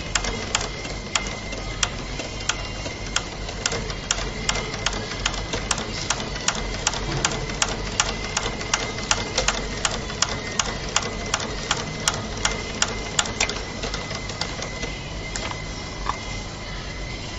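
Heavy-duty industrial shoe-stitching sewing machine running as it stitches a shoe part. Each needle stroke gives a sharp click, about two to three a second, over a steady high whine. The clicks thin out and stop near the end.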